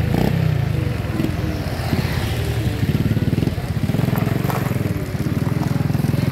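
A small engine, of the motorcycle kind, running steadily close by, with street traffic noise around it.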